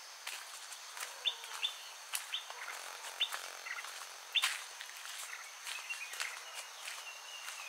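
Birds giving short, sharp chirps at irregular intervals, the loudest about a second and about four seconds in, over a steady high-pitched chorus of crickets.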